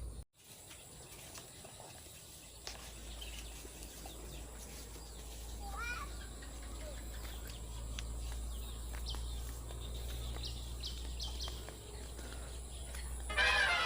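Outdoor ambience: a steady low rumble with scattered short bird chirps and calls, and a louder, more tonal call near the end.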